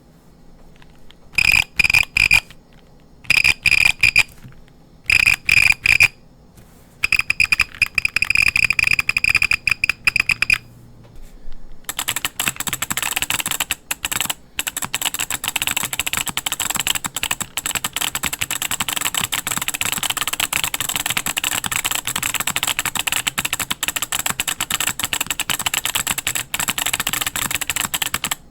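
Mechanical keyboard (MM Studio Class80 R2) being typed on. For the first ten seconds or so its built-in buzzer beeps with every key press and release, in runs of quick beeps with short pauses between. After that the buzzer gives way to the built-in solenoid, which fires a sharp click on each press and release during fast, continuous typing.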